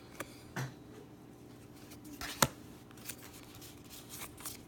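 Pokémon trading cards and a booster-pack wrapper being handled: soft rustling and scattered clicks, with one sharp snap about halfway through.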